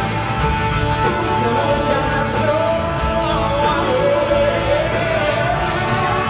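Live country-pop song played through an arena sound system: a male lead vocal over strummed acoustic guitar and a full band, with the sung melody gliding up and down.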